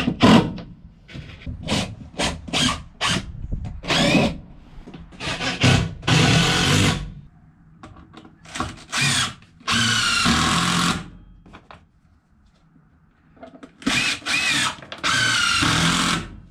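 DeWalt cordless drill driving screws into wooden battens, in a series of short bursts whose whine rises in pitch as the motor speeds up. It pauses briefly about three-quarters of the way through, then runs again.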